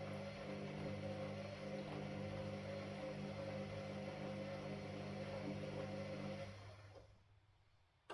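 Washing machine running with a steady hum, then its motor stops and the sound fades out over about half a second, about six and a half seconds in.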